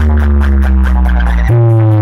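Loud electronic dance music played through a large DJ speaker stack during a sound check, dominated by a heavy sustained bass note that slowly slides down in pitch, with a new bass note striking about one and a half seconds in. A steady tick of about four a second runs on top.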